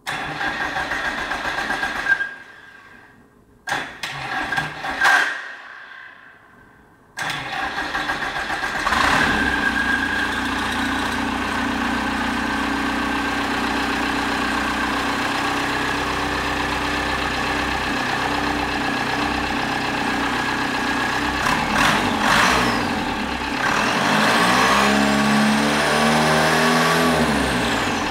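Freshly assembled VW 1.9 TDI (1Z) four-cylinder diesel with a Land Rover 300Tdi injection pump, being started on an engine stand: the starter cranks for about two seconds, stops, cranks again in short bursts, and about seven seconds in the engine catches and settles into a steady idle. Near the end it revs up briefly and falls back.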